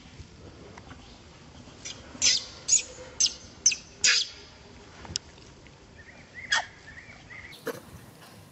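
Baby macaque crying in short, high-pitched squeals: about six in quick succession starting about two seconds in, then a few more spaced out, one falling in pitch. They are distress cries at being pulled by an older monkey.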